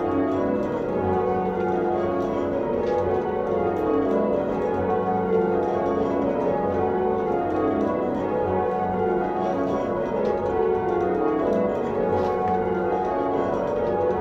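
Church tower bells rung full circle by a band of ringers on ropes: a continuous stream of overlapping bell strokes following one another in sequence, heard from the ringing chamber below the bells.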